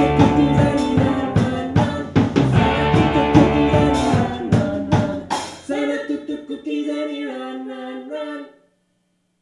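Rock band playing with drum kit, bass guitar and singing. The drums stop about five and a half seconds in and the band ends on a held final chord, which stops about a second before the end.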